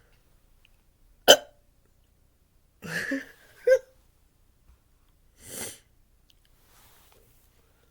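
A person hiccupping after gulping down carbonated water. There is one sharp, loud hiccup about a second in, two more close together around three seconds in, and a softer, breathier one about two seconds later.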